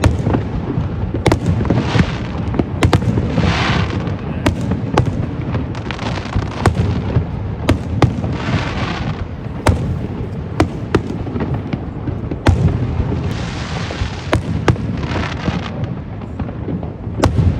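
Fireworks display: a rapid series of sharp bangs from bursting shells, mixed with crackling showers that hiss for a second or so at a time, over a steady low rumble.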